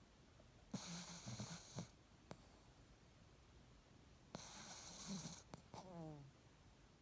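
Two snores about three and a half seconds apart, each a noisy breath lasting over a second. The second ends in a brief falling squeak.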